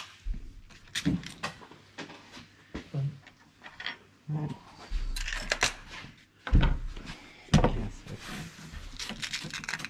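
Break-barrel air rifle being handled: clicks and clunks as the barrel is broken, cocked and closed and the rifle is set onto its rest, with two louder thumps about a second apart in the second half.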